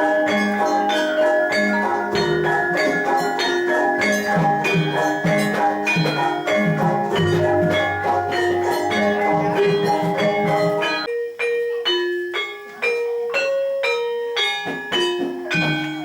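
Javanese gamelan music: bronze metallophones and gongs struck in a fast, even rhythm of ringing pitched notes. About eleven seconds in, the lower instruments drop out, leaving a thinner pattern of high struck notes.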